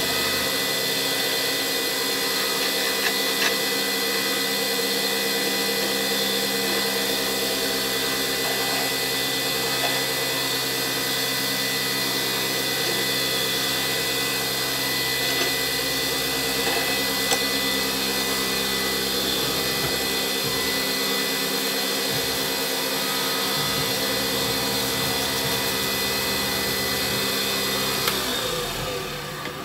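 Lathe running steadily as a turning tool cuts an epoxy pen blank down to size, shaving it into long curls. The machine winds down near the end as the lathe is switched off.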